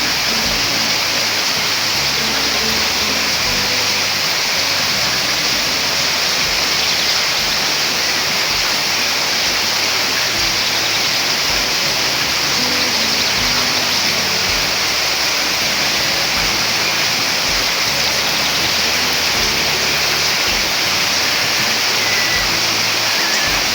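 Steady rain falling, an even hiss without let-up, with a few faint, brief bird chirps over it.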